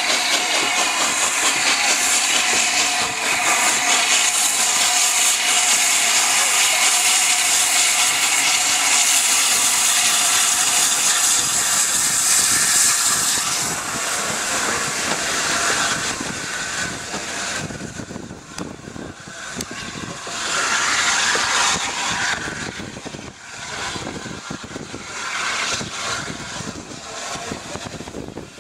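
Steam train passing close by, a loud steady hiss and running noise for the first half; about halfway through it gives way to quieter, uneven train and station noise.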